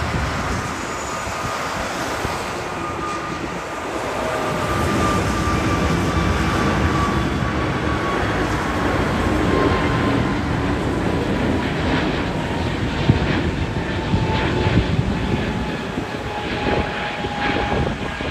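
Jet noise of an Airbus A321neo climbing out overhead: a steady roar with a thin whining tone that slowly falls in pitch as the aircraft moves away.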